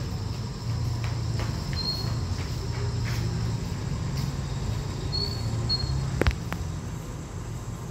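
Steady low hum of the diesel-hauled passenger train idling at the platform, with a few faint high chirps and one sharp knock about six seconds in.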